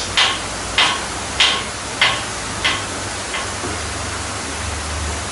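Hand-pumped hydraulic engine hoist being jacked up to lift an engine: six short, sharp strokes of the pump, about one every 0.6 s, growing weaker and stopping about three and a half seconds in. A steady hiss runs underneath.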